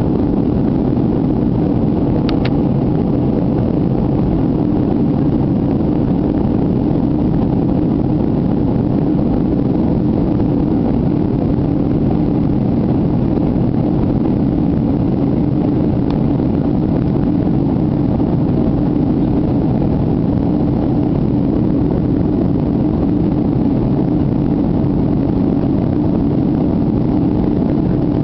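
Steady in-flight cabin roar of a Boeing 757-200ER, the engines and rushing air heard from a passenger seat by the window, with a low hum running through it.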